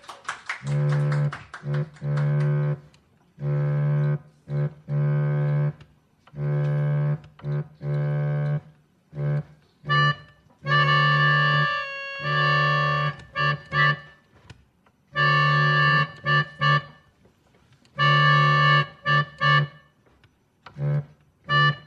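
Organ playing held chords in short phrases, each stopping abruptly, with brief silences between and a few quick detached chords among them.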